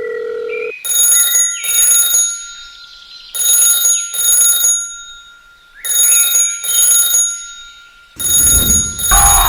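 A steady dial-tone-like note ends under a second in, then an electronic telephone-style ring sounds in double rings, four pairs about two and a half seconds apart.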